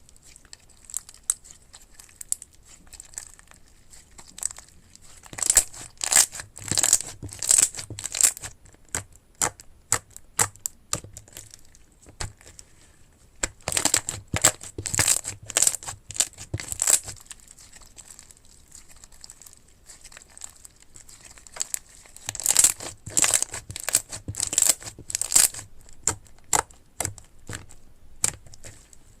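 Slime being squeezed and worked by hand, crackling and popping in dense runs of small clicks, three times over, with scattered pops in between.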